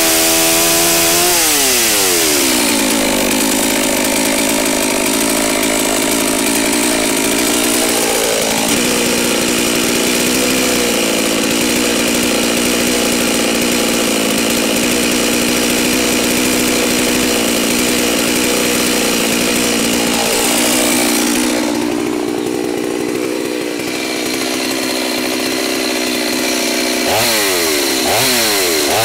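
Holzforma G388 two-stroke chainsaw, new and still being run in. It comes off full throttle at the end of a cut with the revs falling away about a second in, runs steadily at idle for most of the time, then revs sharply back up near the end.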